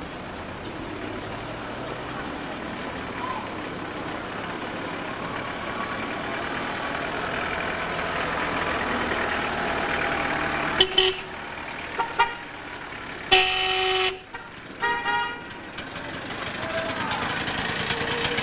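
Car horn honking from a vehicle passing close by: a few short toots about eleven and twelve seconds in, one long blast at about thirteen seconds, and one more toot a second later. Before the horn, engine noise and voices grow steadily louder as the vehicle approaches.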